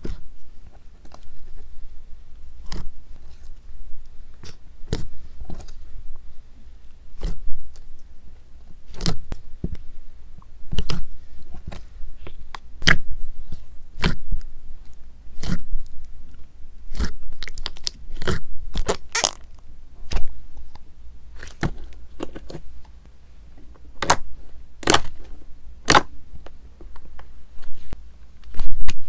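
Clear blue slime mixed with soft clay being poked, squeezed and folded by hand, giving sharp clicking pops as trapped air bursts. The pops come irregularly, about one a second, now and then two close together.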